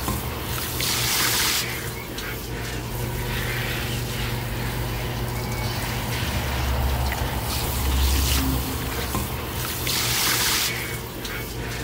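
Garden hose spray nozzle spraying water into and over glazed clay flowerpots, splashing into water pooled in a pot, in spells that swell about a second in and again near the end.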